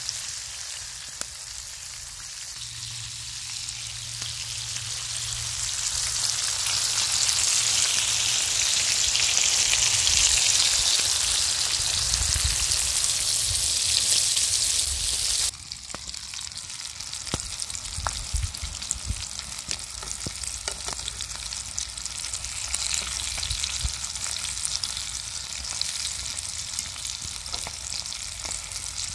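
Small river fish (lambari) sizzling as they fry in hot pork lard in a frying pan. The sizzle swells over the first half and then drops suddenly to a quieter sizzle about halfway through.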